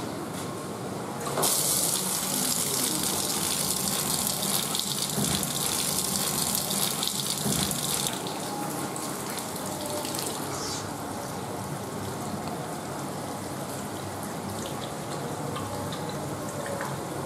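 Water running from a tap and splashing onto a tiled floor. A louder hissing gush starts suddenly about a second and a half in and cuts off about eight seconds in. After that a quieter steady stream pours over a catfish held under the tap.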